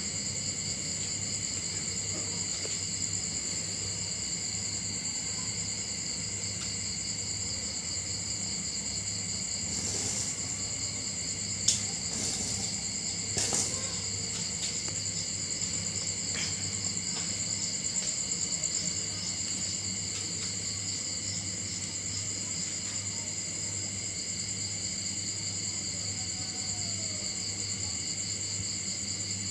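Steady trilling chorus of night insects, with a low hum underneath. A few sharp clicks and knocks come near the middle, the sharpest about twelve seconds in.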